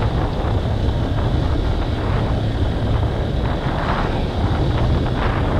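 Honda CB190R's single-cylinder engine running steadily while riding, under a steady rumble of wind buffeting the microphone.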